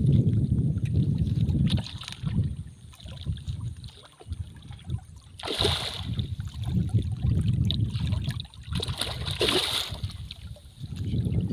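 A hooked fish, a mrigal carp, thrashing at the water's surface by the bank: one splash about six seconds in and a longer one around nine to ten seconds. Low rumble of wind on the microphone underneath.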